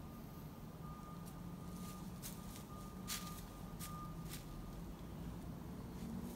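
A white-tailed buck stepping through dry fallen leaves: a handful of short, crisp crunches, the loudest about three seconds in. A steady low hum of distant road traffic runs underneath.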